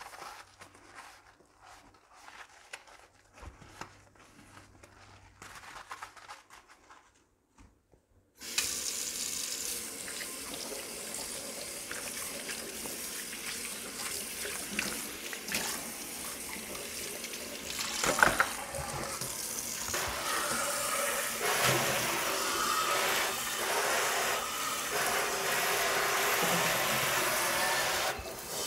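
Quiet hand scrubbing and handling of dishes in a stainless-steel sink. About eight seconds in, the kitchen tap is turned on and water runs and splashes over a glass pot lid and saucepan being rinsed. A single sharp knock of the dishes comes about two-thirds of the way through.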